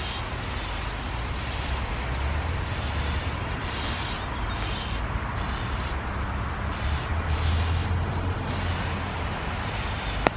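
Steady hiss of rain over a low rumble of distant road traffic, with a few faint, very short high chirps from birds. A single sharp click near the end.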